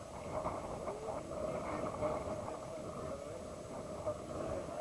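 Quiet outdoor ambience: a steady hiss with faint, indistinct voices now and then.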